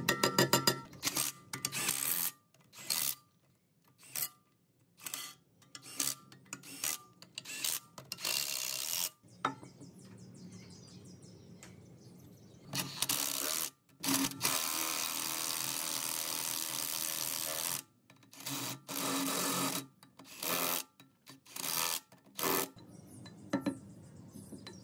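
Workshop handling of metal engine parts and hand tools: a run of separate clinks, knocks and scrapes, with a steady rushing noise lasting about four seconds midway.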